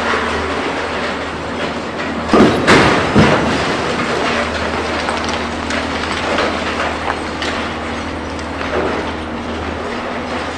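High-rise demolition: concrete breaking up and debris clattering down over a steady engine hum, with a few louder crashes about two to three seconds in.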